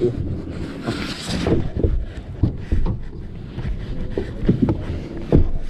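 Handling noise on the microphone of a covered or pocketed camera: irregular low thumps and knocks with rubbing and a brief rush of hiss about a second in.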